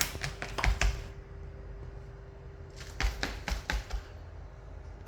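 Two quick flurries of light clicks and scratches, one at the start and another about three seconds in.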